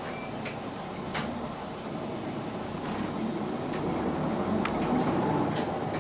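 Cabin sound of an Isuzu Erga PJ-LV234L1 non-step city bus: its inline-six diesel runs steadily at a stop, then grows louder from about four seconds in as the bus pulls away. A few sharp clicks and rattles sound from the cabin.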